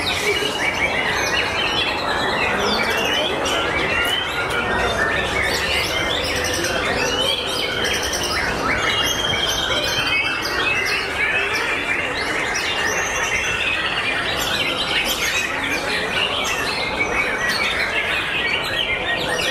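White-rumped shama (murai batu) singing: a dense, unbroken stream of whistles, chirps and trills, with other birds' songs overlapping it.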